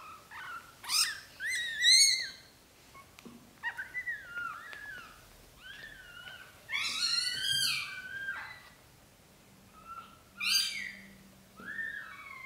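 Newborn British shorthair kittens mewing: a run of about six high, thin cries that rise and fall in pitch, loudest around two seconds in and again around seven to eight seconds in.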